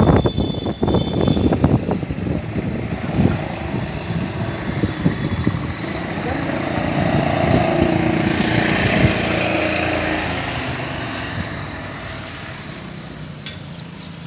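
Storm wind gusting hard and buffeting the microphone, with a steady engine-like drone that swells in the middle and fades away, as of a vehicle passing. A brief sharp click near the end.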